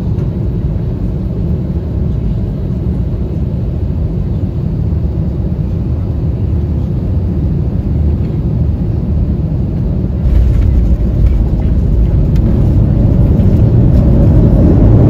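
Steady low rumble of an airliner cabin, heard from inside the plane, stepping up louder about ten seconds in.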